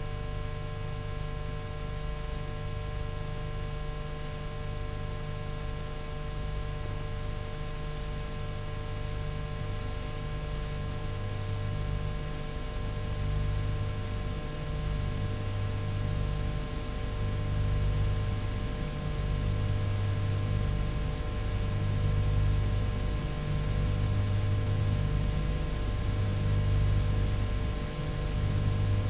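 Steady hiss and electrical hum with no programme sound, heard behind colour test bars: a low hum that swells and fades every second or two, with faint steady tones above it.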